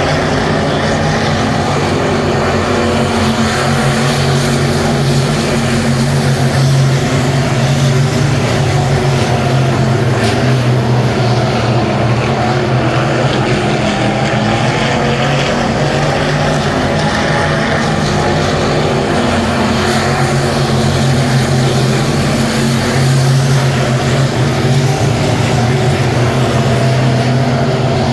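A pack of USRA B-Modified dirt-track race cars' V8 engines running at speed around the oval: a loud, steady drone of many engines at once, swelling slightly now and then.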